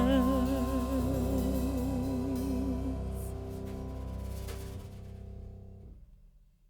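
Background music with a held, wavering note, fading out steadily to silence about six seconds in.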